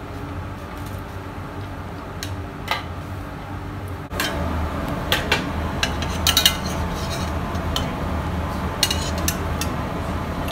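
Metal wire skimmer clinking and scraping against a stainless steel pan while a foie gras is handled in poaching broth, in clusters of sharp clicks, over a steady low hum. In the first few seconds, before the cut, only a few soft clicks as mushrooms are sliced on a wooden mandoline.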